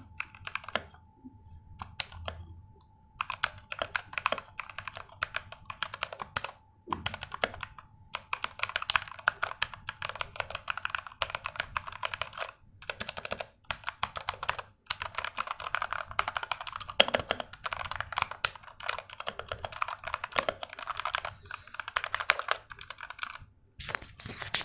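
Redragon K662 mechanical keyboard with red switches being typed on in fast runs of keystrokes, broken by a few short pauses; a deep key sound.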